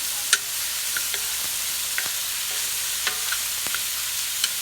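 Chicken sizzling in hot oil in a wok: a steady frying hiss. A few sharp taps of the stirring utensil on the wok come through it, the loudest about a third of a second in.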